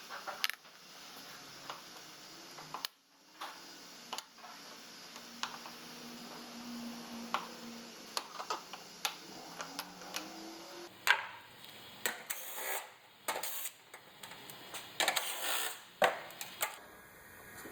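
Scattered clicks and light knocks of plastic trim clips and hand tools being handled, with a cluster of sharper clicks in the second half.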